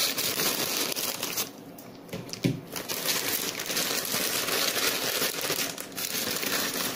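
Grey plastic postal mailer bag crinkling and rustling as it is cut with scissors and torn open by hand, with a brief lull about two seconds in.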